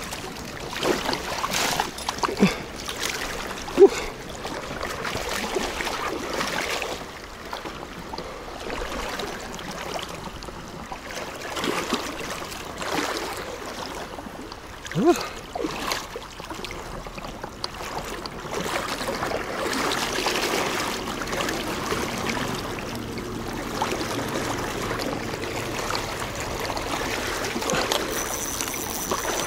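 Fast-flowing shallow river rushing steadily, with a few brief louder sounds early on and about halfway through.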